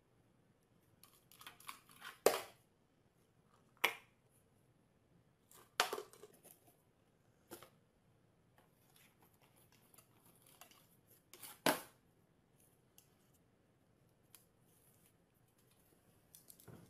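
Scattered sharp taps and short rustles, about five louder clicks among softer scrapes, as a small dog knocks and paws at a tin can and a cardboard box on a glass table.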